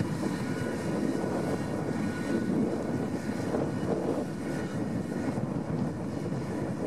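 New Holland TS115 tractor's diesel engine running steadily under load while it pulls a plough through the soil.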